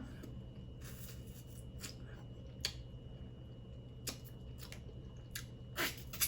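Faint, scattered clicks and cracks of shellfish shells being broken and picked apart while eating, about eight in a few seconds, over a low steady hum.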